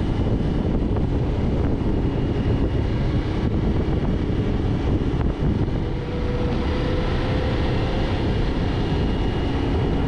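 A car's steady road noise on a paved road: tyre rumble and driving noise with no sharp events.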